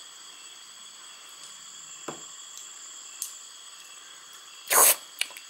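Quiet room tone with a faint steady high hiss and a couple of small clicks, then one short loud noisy sound near the end.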